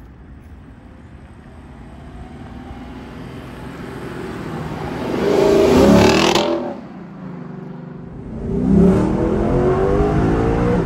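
Lexus LC500's 5.0-litre V8 exhaust growing louder as the car approaches and accelerates past, rising in pitch and peaking about six seconds in before dropping away suddenly. About two seconds later the same V8 is heard from inside the cabin, revving hard and climbing in pitch under acceleration.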